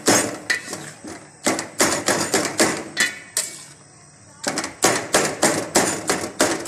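A spatula's blade chopping cooked chicken and knocking on a stainless-steel pan, sharp knocks about three a second, pausing for about a second near the middle before carrying on.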